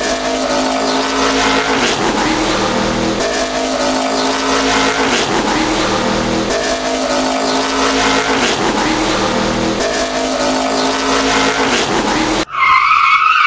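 A car engine running, as a looped sound effect that repeats about every three seconds. About a second before the end it cuts abruptly to a higher, wavering squeal.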